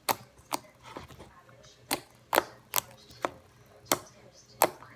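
Glossy slime being worked by hand to make clicks: about eight sharp, irregularly spaced clicking pops.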